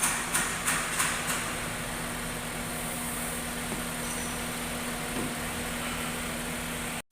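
A series of quick knocks, about four a second, in the first second or so, then an engine running steadily with a low hum. The sound cuts off suddenly at the end.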